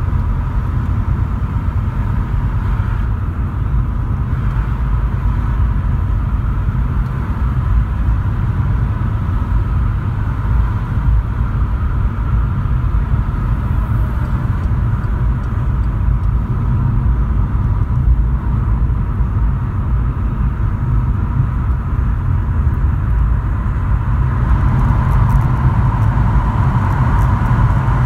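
Steady in-cabin road noise of a Volkswagen Polo driving at motorway speed: a low rumble of tyres and engine. Near the end it grows a little louder as the car enters a road tunnel.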